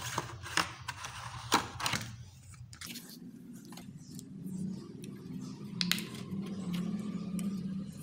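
Clear plastic blister packaging crackling and clicking as it is opened and handled around a metal staple gun, with a quick run of sharp clicks in the first couple of seconds and only a few scattered ones after.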